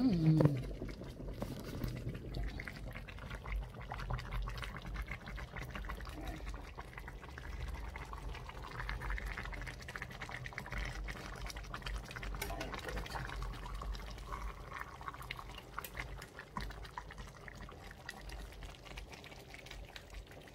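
Pot of egusi soup simmering on an electric cooker, a steady bubbling and crackle of thick liquid, with small clicks and knocks from the pot and lid being handled.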